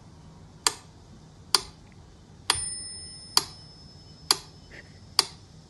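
Mechanical metronome ticking at a slow, even beat, about one tick a second, six ticks in all. The tick about two and a half seconds in carries a short ringing tone.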